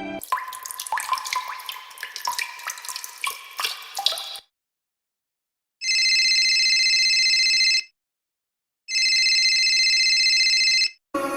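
Water dripping, a rapid patter of drops with short pitched plinks, for about four seconds. After a short silence comes a steady high electronic tone, twice, each about two seconds long with a second's gap between.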